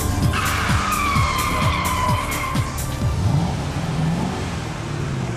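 Tyres squealing in a skid for about two seconds, over a low engine hum and music with a steady beat that stops about three seconds in.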